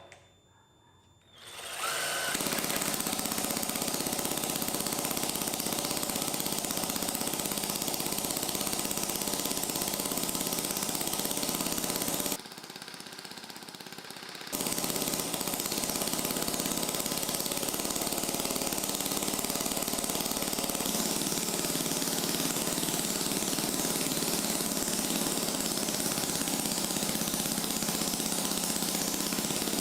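A loud, steady, harsh mechanical rattle that starts about two seconds in. It stops for about two seconds near the middle, then starts again.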